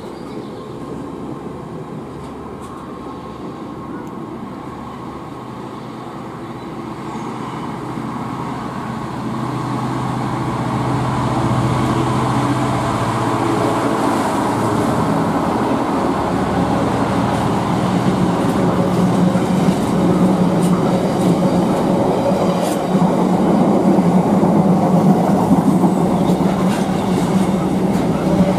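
Diesel freight locomotive passing close, hauling a container train. Its engine drones steadily and grows louder as it comes by, the note rising about halfway through, over the rumble of the wagon wheels on the rails.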